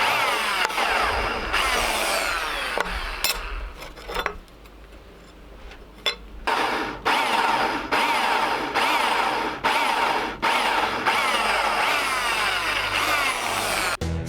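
Power drill running in repeated bursts, with falling whines as it spins down between them.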